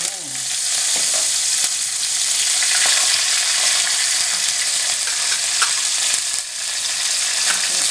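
Chopped onion, curry leaves and ginger frying in hot coconut oil with mustard seeds: a steady sizzle, stirred in the pan.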